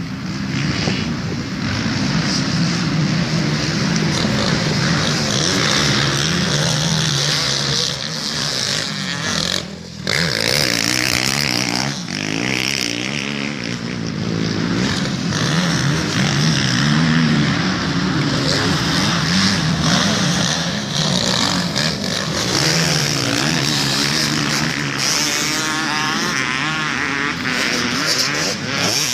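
Motocross motorcycle engines revving on a dirt track, the pitch rising and falling as the bikes accelerate, jump and back off, with a brief lull about ten seconds in.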